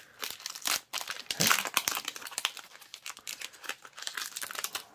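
Foil Pokémon booster pack wrapper crinkling and being torn open by hand, a dense irregular crackle throughout.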